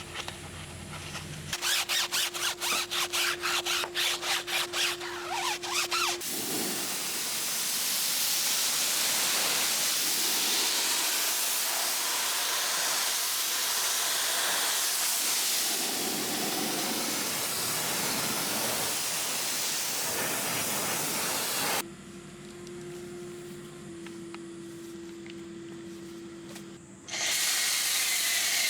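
Pressure washer at work: its motor hums while a quick run of pulses sounds for a few seconds, then the water spray hisses steadily for a long stretch. The hiss drops back to the hum and returns near the end.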